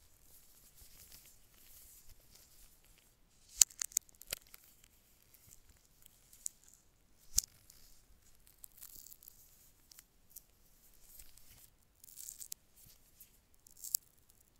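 Gloved hands handling a coiled USB-C cable and its wrap bands: soft rustling and crinkling, broken by sharp clicks. There is a quick cluster of clicks about three and a half seconds in, a single click about seven seconds in, and another near the end.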